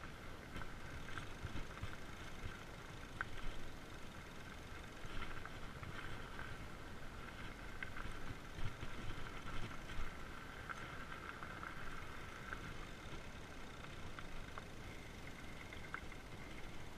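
Fat bike rolling along a dirt forest path: a steady tyre hum on the ground, with occasional clicks and knocks from the bike over bumps.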